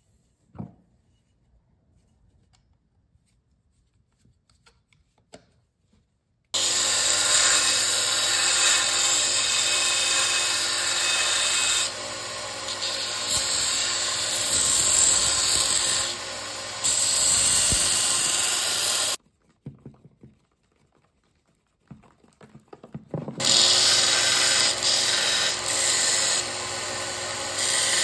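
Bench belt sander running while a knife's leopard wood handle scales with brass corby bolts are shaped against the belt, the level shifting as the handle is pressed on and moved. It starts suddenly after about six seconds of near quiet with a few faint clicks, stops suddenly about two-thirds of the way through, and comes back near the end.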